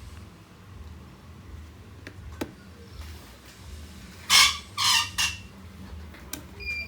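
Clicks of a keypad phone's buttons being pressed to power it off, with three short, loud rasping noises a little over four seconds in.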